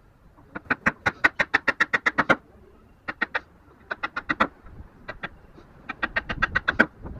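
Hammer striking the handle of a wood chisel held upright in a wooden block, chopping out a notch for a joint: quick runs of sharp knocks, about five or six a second, in several bursts with short pauses between them.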